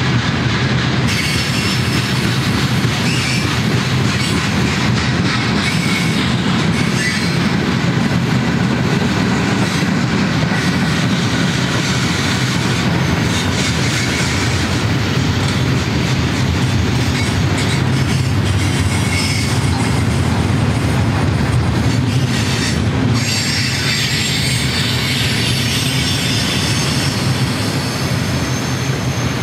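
Freight cars of a mixed manifest train rolling steadily past close by: a constant rumble of steel wheels on rail, with clacking over the rail joints and a thin high wheel squeal that comes and goes.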